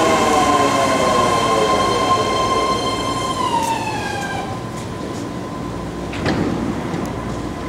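BART train's propulsion motors whining in several tones that slide down in pitch as the train brakes into the station. The whine drops away about four seconds in as the train comes to a stop, leaving a steady hum, with a brief knock about six seconds in.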